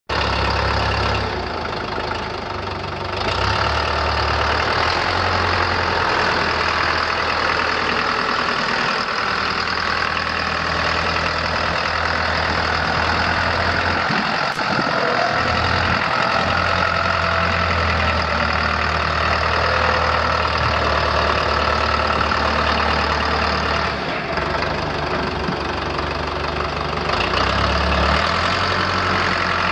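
1974 Case 580B Construction King's four-cylinder diesel engine running steadily.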